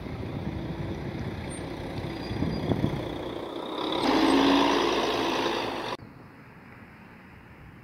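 City buses driving past and turning close by, engine running under wind noise. About four seconds in it gets louder for roughly two seconds, then drops suddenly to a faint, distant engine sound.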